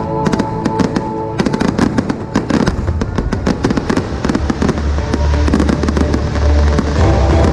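Fireworks going off: sharp bangs and dense, rapid crackling pops, thickest from about a second and a half in, with music playing underneath.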